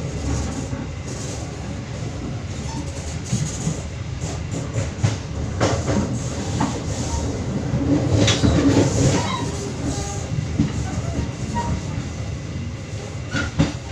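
Passenger train carriage in motion, heard from inside: a steady rumble of wheels on rail with irregular sharp clacks from the wheels, rising to a louder, busier stretch of clatter about two thirds of the way through.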